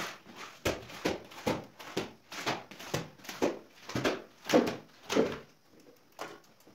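Rubber boots stepping on a wet tiled floor at walking pace, about two steps a second, stopping about five seconds in.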